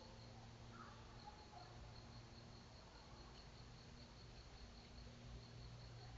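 Faint insect chirping, likely crickets: a high pulsed note repeating steadily about six times a second over quiet background hiss.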